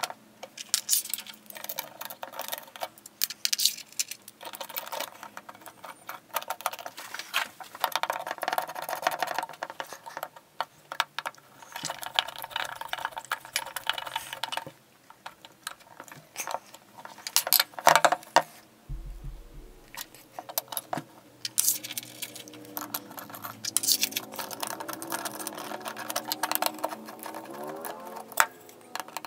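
Metal fittings and screws clicking and clinking against a wooden hand plane's body and a tabletop, mixed with the scrape and creak of a screwdriver turning screws into the wood.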